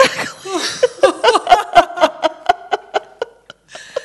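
Women laughing: a quick run of rhythmic laugh pulses that trails off about three seconds in.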